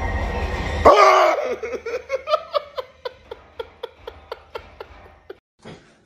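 A sudden loud burst of noise with a startled cry about a second in, then a long run of laughter in short even bursts of about four a second that gradually fades.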